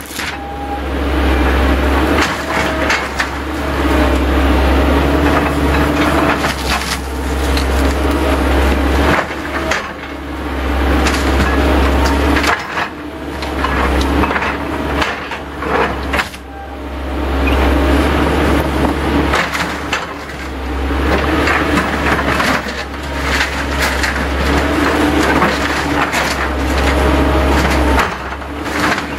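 Tracked Volvo excavator's diesel engine running with a steady low drone while its bucket and hydraulic thumb crunch, scrape and knock through a pile of shed sheet metal and wood. There are brief lulls between grabs.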